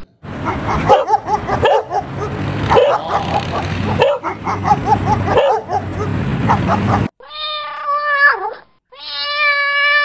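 A dog barking and yipping repeatedly over a noisy background for about seven seconds, then a cat meowing: one meow, a short break, and a second, long meow starting near the end.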